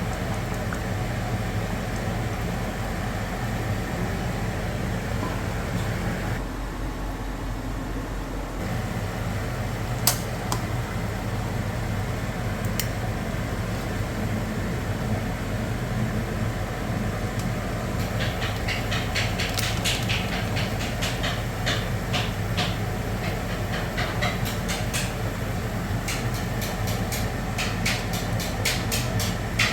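A steady low hum runs throughout. From about two-thirds of the way in, it is joined by a quick, irregular series of sharp clicks and light clatter from cooking.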